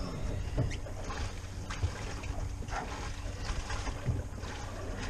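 Steady rumble of wind and water around a small fishing boat at sea, with a faint steady hum under it and scattered light knocks and clicks while a heavy fish is pumped up on rod and reel.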